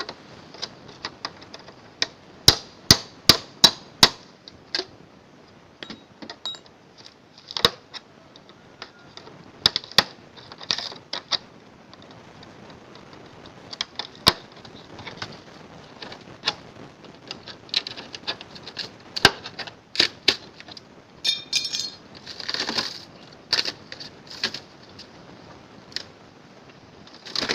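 Sharp strikes and metallic knocks from a refrigerator being hacked apart by hand: a quick run of five hard blows a couple of seconds in, then scattered knocks and clinks, with a brief metallic ringing past the middle.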